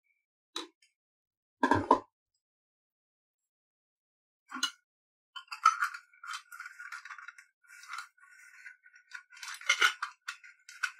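A stainless-steel sev maker being handled: two dull knocks near the start, then a run of metallic clinking and scraping as the steel cylinder and its plunger are fitted together.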